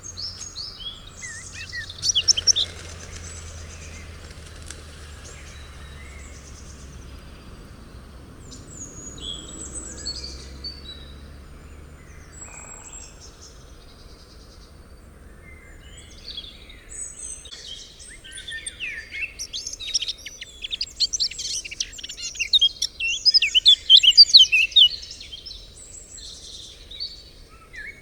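Evening forest birdsong, with a blackcap among the singers: several birds calling and singing in short phrases. A denser, louder run of rapid song comes in the last third. A faint low rumble sits underneath in the first half.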